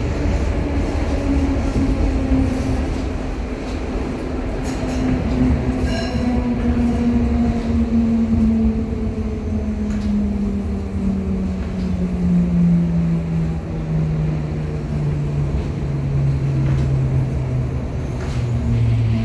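Electric suburban train heard from inside the car: the traction motors whine in a steady falling pitch as the train slows, over a constant rumble of wheels on rails, with a few light clicks.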